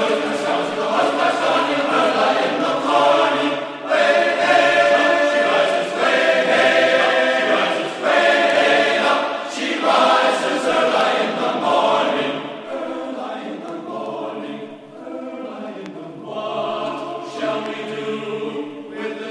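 Choral music: a choir singing in slow phrases, getting quieter in the second half.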